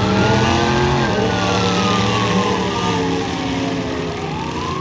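A siren wails, its pitch rising slowly, falling over about three seconds, then rising again near the end, over derby car engines running underneath.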